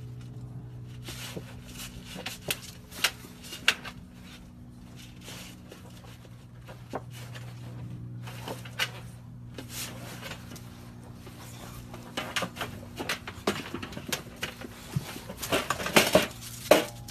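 An English bulldog rummaging head-first in a galvanized metal tub full of toys: scattered knocks and rattles of toys shifting against the metal, coming thicker near the end. A steady low hum runs underneath.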